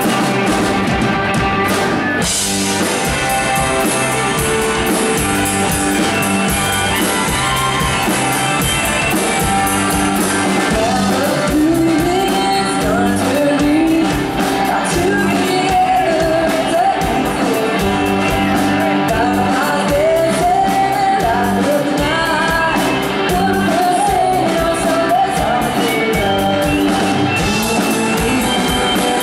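Live band playing a song on drums, electric guitars and fiddle, with a woman singing lead from about eleven seconds in.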